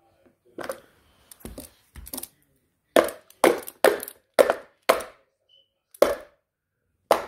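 Sharp knocks and clacks of hard plastic: toy cars being handled and set against a large hollow plastic toy car transporter. About ten separate knocks, coming fastest, about two a second, in the middle.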